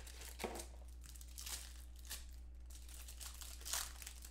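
Plastic crinkling and rustling as trading cards in plastic sleeves and top loaders are handled: a few short, soft rustles over a steady low hum.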